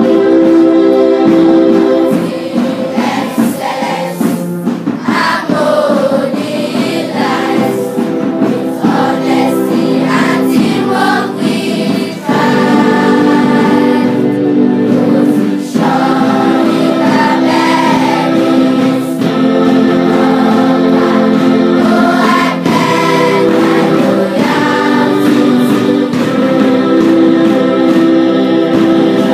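A large group of schoolchildren singing together, with long held notes.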